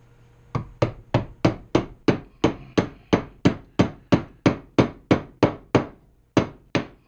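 Hammer striking repeatedly to drive a bearing race into the trike's steering head: about nineteen sharp blows at roughly three a second, with a short pause near the end.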